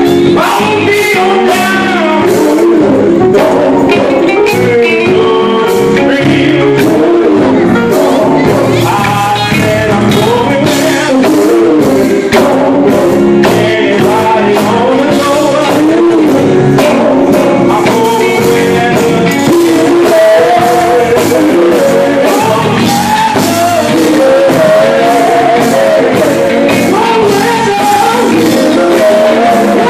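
Live, amplified gospel music from a male vocal group: a lead singer sings over backing voices, with electric guitar and a steady driving beat.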